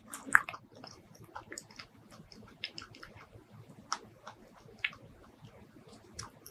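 Close-miked mouth sounds of someone chewing soft mini durian flesh: scattered small clicks and smacks, the sharpest one just after the start.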